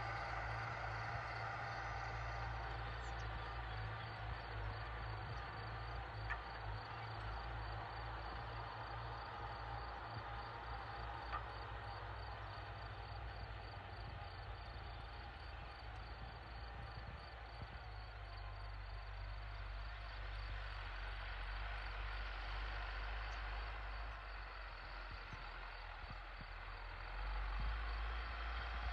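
Case JX100 MaxPro diesel tractor engine running steadily at a distance while it pulls a field roller over tilled soil, a low hum that grows louder near the end.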